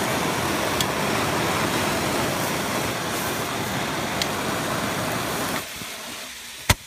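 A four-pack of small handheld fireworks burning together, giving a loud steady fizzing hiss as they throw sparks; the hiss dies down about two-thirds of the way through and a single sharp bang comes near the end.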